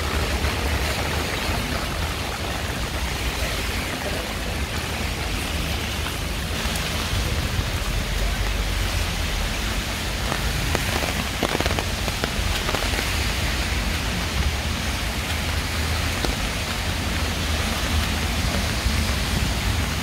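Heavy rain pouring down steadily in a dense, even hiss, with a low rumble beneath it.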